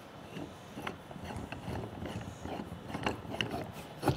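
Aluminum roof-rack crossbar sections being twisted together by hand on their metal threads: a run of small clicks and scrapes, with a sharp knock just before the end.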